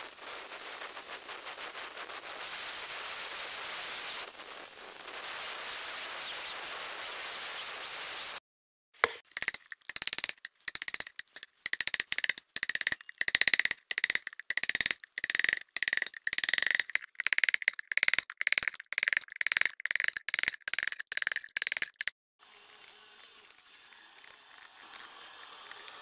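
Steady noise for about eight seconds. Then, after a short break, rapid blows drive a wooden-handled carving chisel into a hardwood bowl blank, about three strikes a second with a ringing note, for some thirteen seconds. Near the end comes a quieter scraping as a small hand gouge pares the wood.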